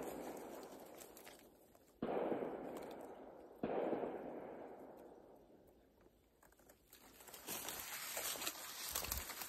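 Two distant rifle shots about a second and a half apart, each a sudden crack followed by a long echo that dies away over two to three seconds; the echo of an earlier shot is fading at the start.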